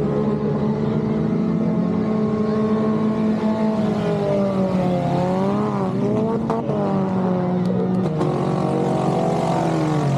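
Several speedway cars' engines running on the track, their pitch rising and falling as they rev and back off.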